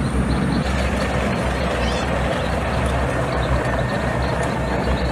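A main battle tank driving, its engine and running gear making a steady low rumble with a noisy hiss over it.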